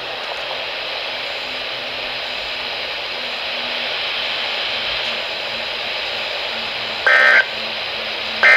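NOAA Weather Radio broadcast through a weather radio receiver: steady static hiss of dead air, then about seven seconds in two short, loud digital data bursts about a second and a half apart, the SAME end-of-message code that closes the weekly test.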